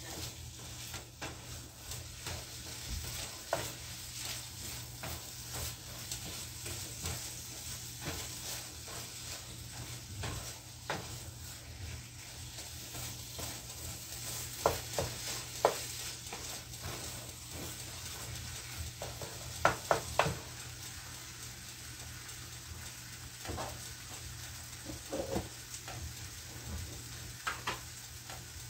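Wooden spatula stirring and scraping an eggplant and egg mixture in a frying pan over a steady sizzle, with frequent small clicks and a few louder knocks of the spatula against the pan around the middle and near the end.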